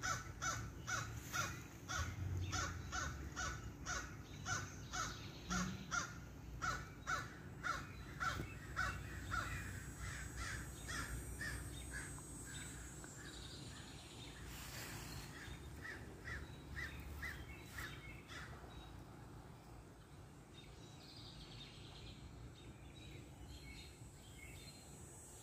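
Large white dog panting steadily, about two breaths a second, fading and becoming fainter about halfway through; the dog is panting to cool off in the heat.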